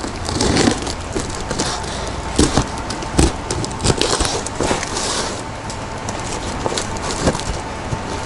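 A cardboard parcel being opened by hand: scraping and crinkling of cardboard and wrapping, with irregular sharp clicks and knocks.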